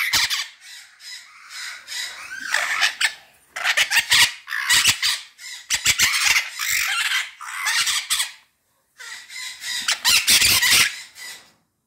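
White-fronted Amazon parrot squawking: a run of harsh, raspy calls, one after another, with a brief pause about two-thirds of the way through.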